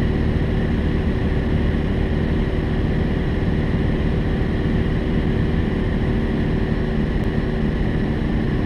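Light propeller airplane's engine and propeller running steadily in cruise, heard inside the cabin as an even drone with a constant hum.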